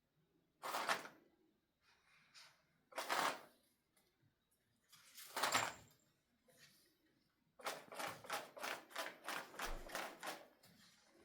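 Motorised cat toy clattering in three short bursts about two and a half seconds apart, then a quick run of clicks, about four a second, for around three seconds: the toy starting and stopping.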